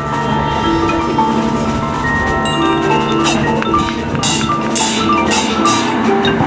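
High school marching band playing its field show: held chords with mallet percussion (marimba, chimes, glockenspiel) carrying the melody. About four seconds in comes a run of five sharp percussion accents, about half a second apart.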